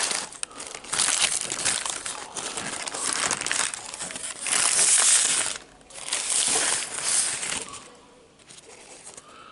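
Paper sandwich wrapper being unfolded and crinkled by hand: loud rustling in repeated bursts that dies down to faint handling about eight seconds in.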